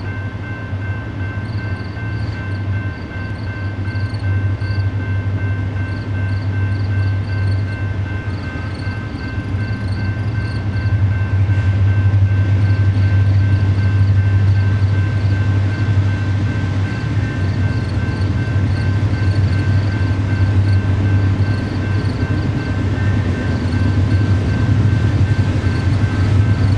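Diesel locomotives of an approaching coal train, a steady low rumble that grows louder about eleven seconds in.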